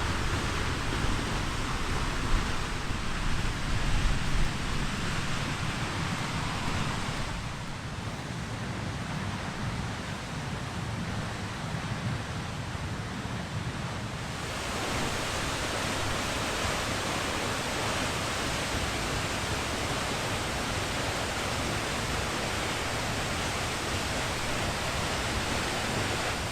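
Steinsdalsfossen waterfall: a steady rush of falling water with a deep rumble beneath, its tone shifting slightly twice.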